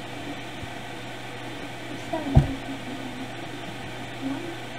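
Steady low electrical hum with background hiss, and one dull thump about halfway through.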